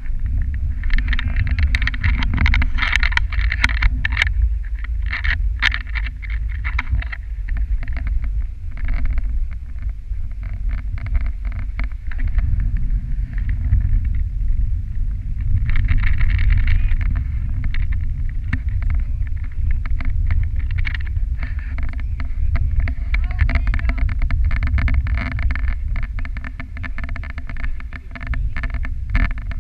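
Dog sled running over packed snow: a steady low rumble with the runners scraping and crackling on the snow, heaviest at the start, around the middle and again near the end.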